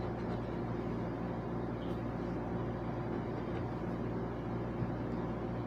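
A steady low mechanical hum, as of a running motor or engine, holding several steady low tones, with a faint tick near the end.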